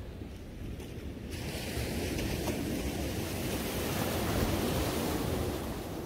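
Small sea waves breaking and washing up a sandy beach. The hiss of the surf swells about a second in and is loudest around four to five seconds in, over a steady low rumble of wind on the microphone.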